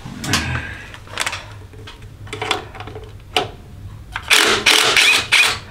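Cordless drill/driver run in a short burst to tighten a hose clamp screw on a cold air intake tube, after a few knocks and clicks of handling the tool and parts.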